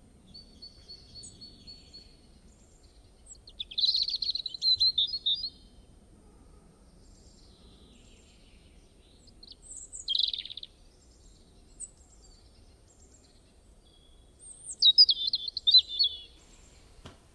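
Songbirds singing: a few short, high chirping and trilling phrases several seconds apart, over a faint low hum. A single sharp click comes near the end.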